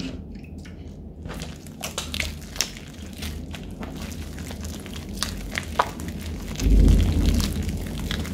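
Sticky shaving-cream slime, just dosed with borax activator, being kneaded and squeezed by hand on a wooden table: wet squelches and small crackling pops. A louder low rumble of heavier pressing comes about seven seconds in.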